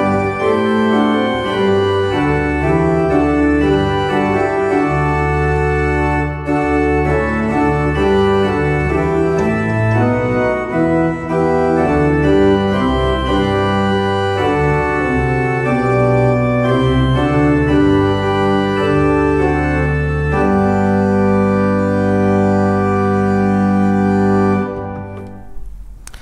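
Church organ playing a hymn tune in full sustained chords. It ends on a long held final chord that is released near the end and fades away.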